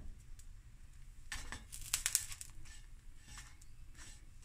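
Stainless steel frying pan: a short cluster of light clinks and scrapes as toasted bread is moved about in it, loudest about two seconds in, with a few softer touches after.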